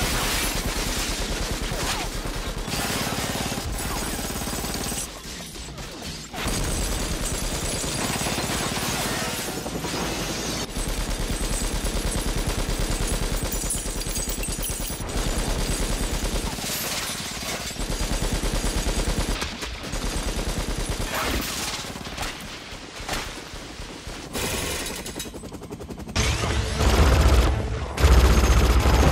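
Minigun fire from film soundtracks: long bursts of extremely rapid gunfire with glass shattering, cut together from several scenes with a few brief pauses. The heaviest, deepest firing comes near the end.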